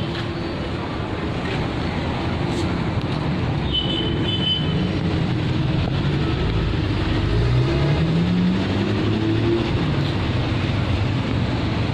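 Steady traffic noise with a motor vehicle's engine rising in pitch as it speeds up, about seven to nine seconds in.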